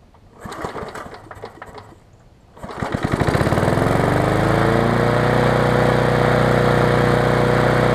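1970s Briggs & Stratton push-mower engine being pull-started: a first pull turns it over briefly without it catching, then about two and a half seconds in it fires and catches, its speed rising for about two seconds before it settles into steady running. This is the first start of the engine on the mower, and it starts readily.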